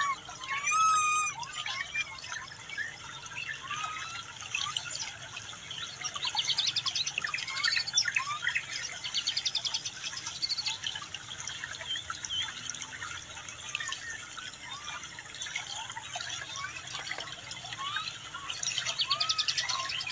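Birds chirping and whistling in a busy chorus, with short rapid trills that come in several bouts.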